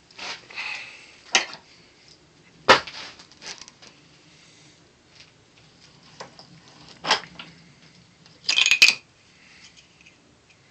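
Sharp metallic clicks and clanks from a bench vise being opened to release a crushed polycarbonate tube, with a short louder clatter near the end as the tube comes out of the jaws.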